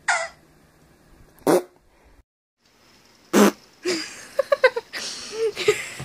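Fart noises: a short one at the start, another about a second and a half in, and the loudest, a longer blast, about three and a half seconds in. A run of shorter, squeakier sounds follows.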